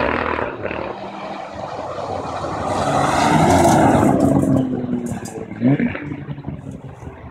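Rally car passing at speed: the engine grows louder to its peak about four seconds in, then drops in pitch as it goes by. A sharp crack comes about five and a half seconds in, and the engine revs up again as the car pulls away.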